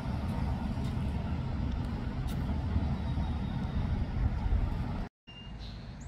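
Wind buffeting an outdoor microphone: a rough, fluctuating low rumble. It cuts off abruptly about five seconds in and is followed by a quieter outdoor background.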